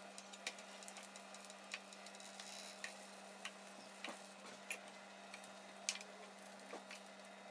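Quiet food-prep handling: light clicks and taps of a fork and fingers as sucuk slices are laid on bread on a sandwich grill, the sharpest click about six seconds in, over a faint steady hum.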